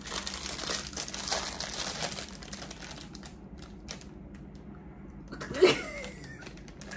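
A foil chip bag crinkling as it is handled and opened, busiest in the first two to three seconds and then dying down. A short voice sound about five and a half seconds in.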